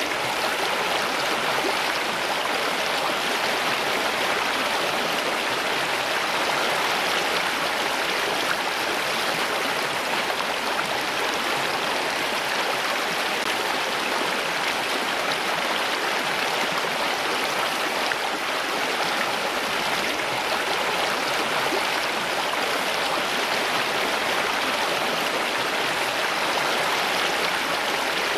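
Running water, like a stream flowing over rocks: a steady, even rush with no change.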